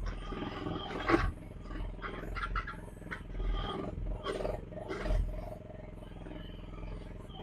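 Mini excavator running with its engine steady, the hydraulics groaning under load in repeated surges as the bucket digs into dirt. A sharp clunk about a second in.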